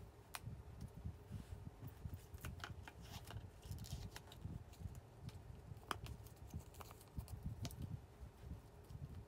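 Faint crinkling and rustling as the paper lid of a cup of instant noodles is peeled back, with scattered light clicks and taps of disposable wooden chopsticks against the cup. A low rumble of handling noise sits under it.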